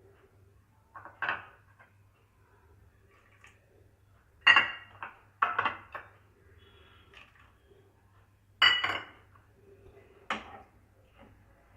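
A metal cooking utensil clinking against a cooking pan about six times at uneven intervals, each clink ringing briefly, as the pan's contents are stirred.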